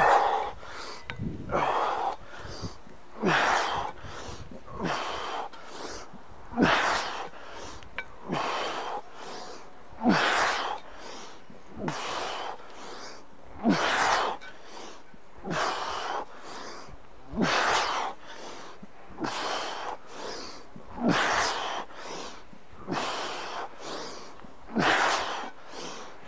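A man's hard, sharp breathing while swinging a steel mace: short forceful breaths about every second and a half to two seconds, with every other one stronger.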